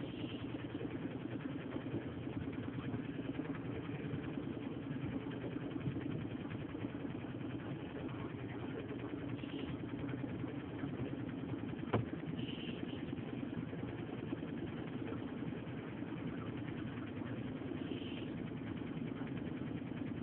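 Steady rush of wind and water on a small sailboat under way, with a single sharp knock about twelve seconds in.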